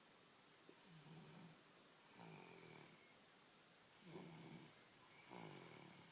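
Faint snoring: four short, low snores in two pairs, a little over a second apart within each pair.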